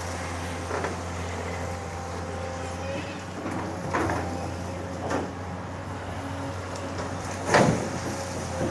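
Excavator's diesel engine running steadily, with four short knocks as it works the levee soil, the loudest about three-quarters of the way in.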